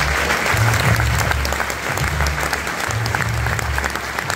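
Audience in a packed hall applauding a snooker player's walk-on, over loud walk-on music with a repeating heavy bass line.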